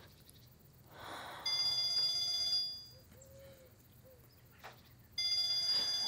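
A phone ringing: two identical electronic rings, each about a second long, the second about three and a half seconds after the first.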